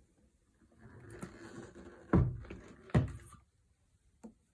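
Plastic humidifier water tank being handled: a faint rustle, then two knocks under a second apart.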